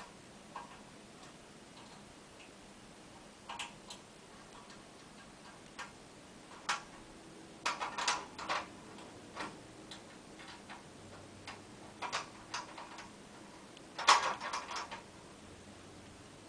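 Irregular light metallic clicks and ticks of a hex key turning the set screws of a slide connector inside an aluminium extrusion bar, tightening the connector down, with a louder flurry of clicks near the end.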